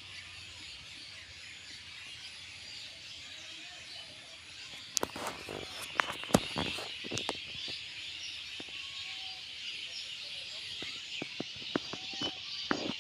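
Small birds chirping outdoors over a steady high-pitched background chorus, with a series of sharp clicks starting about five seconds in.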